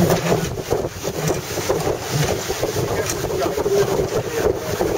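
Wind buffeting the microphone aboard a sailing yacht under way, as a steady, fluttering rush of noise.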